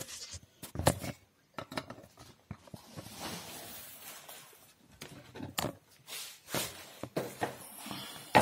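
Handling noise: scattered knocks and clicks as the camera is moved and things are shifted on a workbench, with a soft rustle about three seconds in.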